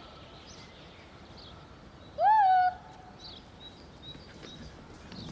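Faint chirping of small birds, with one loud animal call about two seconds in, lasting about half a second, that rises sharply in pitch and then is held a little lower.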